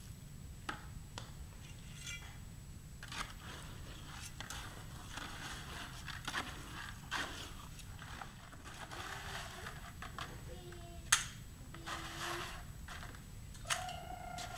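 A trowel scraping and stirring wet, gritty concrete mix in a plastic bucket and scooping it into metal molds, with irregular scrapes and knocks. The sharpest knock comes about two-thirds of the way in. A high, drawn-out call begins near the end.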